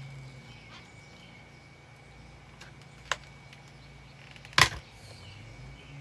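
Two sharp clacks from a Kenmore canister vacuum cleaner being pried at to get a part off, one about three seconds in and a louder one about a second and a half later.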